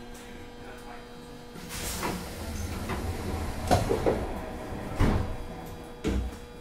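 Sanyo 5000 series train car standing at a station, its equipment giving a steady hum. Several dull knocks and thumps come through the car, the loudest just under four seconds in and again about five seconds in.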